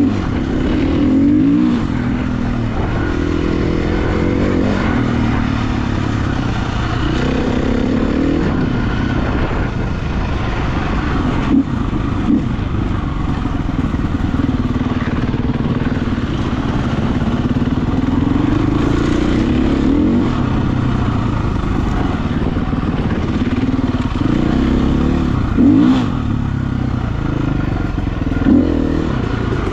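Husqvarna FE350 four-stroke single-cylinder dirt bike being ridden, its engine revving up and falling back repeatedly as the throttle opens and closes. A few short sharp knocks come through in the middle and again near the end.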